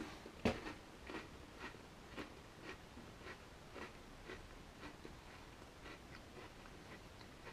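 Faint, regular ticking, about two ticks a second, the loudest tick about half a second in, growing fainter after it.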